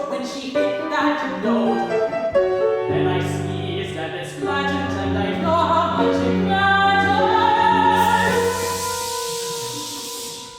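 Operatic singing with piano accompaniment, the voices moving through several phrases and ending on a long held high note. About eight seconds in a steady hiss comes in over the held note and fades away.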